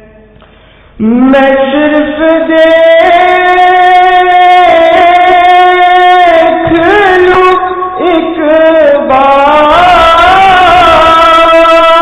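Naat, an Urdu devotional song, sung by one voice in long held notes with ornamented melodic turns. It starts about a second in, after a brief pause.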